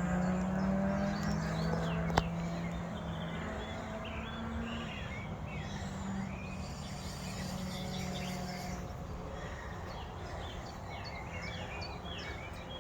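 Small birds chirping and singing over a steady low hum that fades out about nine seconds in, with one sharp click about two seconds in.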